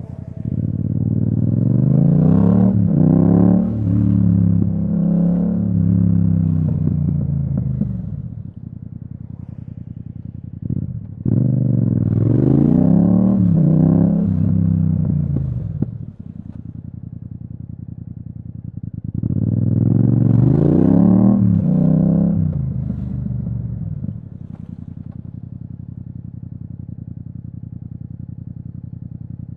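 Yamaha MT-07's parallel-twin engine through an Akrapovic exhaust, heard from the rider's seat. Three times it pulls hard, its pitch climbing and stepping back down with each quick upshift, then it falls back to a low, steady idle for a few seconds.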